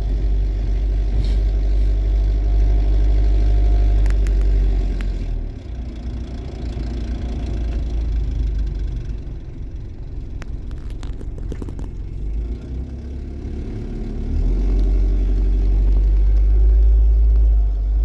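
Engine and road noise heard from inside a moving vehicle: a low rumble that eases off about five seconds in and grows louder again about fourteen seconds in.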